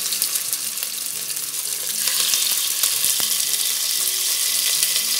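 Pieces of raw pork sizzling in hot vegetable oil in a kazan as more pieces are dropped in, the sizzle growing louder about two seconds in.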